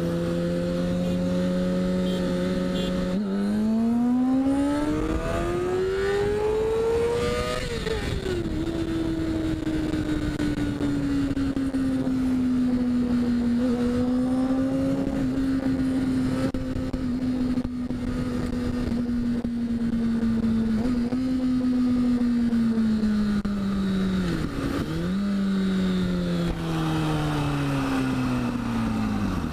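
2008 Kawasaki Ninja ZX6R inline-four sport-bike engine pulling hard in a race start. After a few seconds at a steady note it revs up to a high scream, shifts up, and runs at a fairly steady high pitch with wind rush over the microphone. Near the end the pitch falls as the bike slows down.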